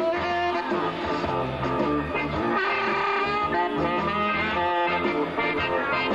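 A live band playing an instrumental blues tune, with a saxophone lead over guitar.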